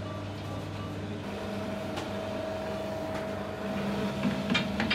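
Steady mechanical hum of bakery machinery, its pitch shifting slightly about a second in. A few light taps and ticks come near the end.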